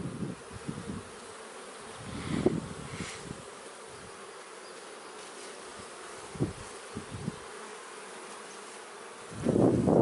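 Honey bees humming at a hive entrance. Single bees buzz close past a few times, about two and a half seconds in and again around six and a half to seven seconds. A much louder rushing noise sets in near the end.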